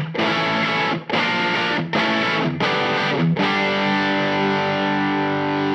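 Electric guitar played through an MXR FOD Drive overdrive pedal with its two channels blended, giving a mildly distorted tone. Five short strummed chords, then a chord left ringing out.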